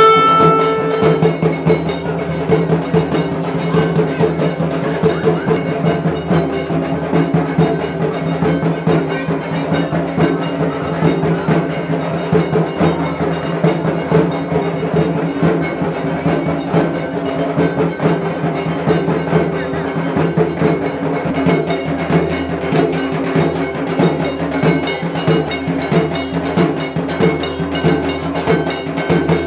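Dhak drums beaten in a fast, steady rhythm, with a ringing metallic beat alongside. A held horn-like note ends about a second in.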